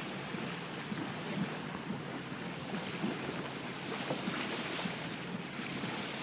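Water washing steadily along the hull of an X-41 sailing yacht moving through calm sea, with wind rumbling on the microphone.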